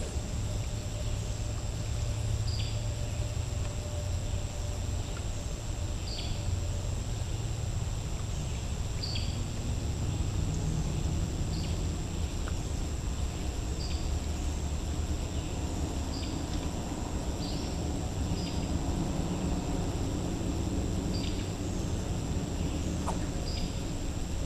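A bird repeats a short, high, falling call every couple of seconds over a steady thin insect drone and a low rumble.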